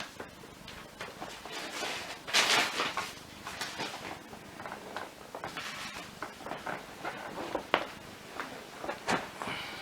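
Tools and small parts being rummaged through and handled: a run of clicks, knocks and rustling, with the loudest clatter about two and a half seconds in and single sharp knocks later on.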